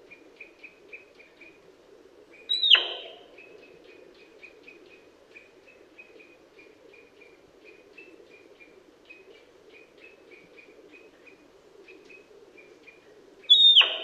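Sika deer stag whistling twice, about eleven seconds apart: each call is a brief, loud, high whistle that drops steeply in pitch and trails off. It is the stag's autumn rutting call.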